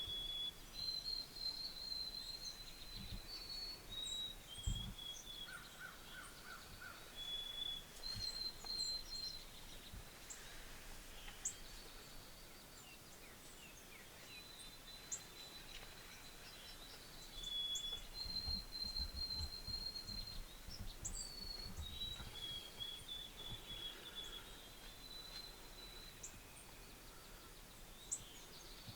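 Faint songbirds singing outdoors: high, thin held trills that step up and down in pitch, over scattered short chirps. A short run of five lower notes comes about six seconds in, and there is a soft low thump just before it.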